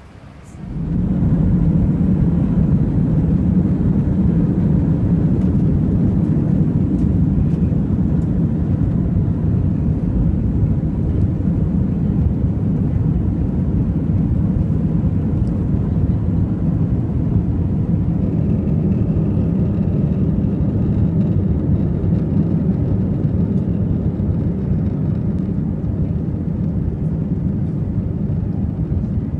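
Jet airliner engines at takeoff power, heard from inside the passenger cabin during takeoff and climb-out: a loud, steady, low rumble that comes up sharply about a second in.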